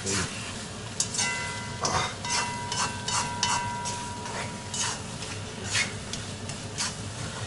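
Food sizzling as it fries in a cast-iron kazan, with a spatula stirring it and scraping and knocking against the pot. A faint ringing tone lasts a few seconds after a knock about a second in.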